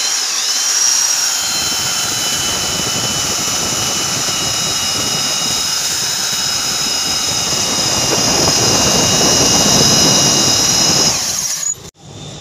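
Handheld electric belt sander running at full speed: a high motor whine over the rasp of a steel blade held against the moving sanding belt to sharpen it. The grinding grows louder from about eight seconds in, and the sander cuts off about eleven seconds in.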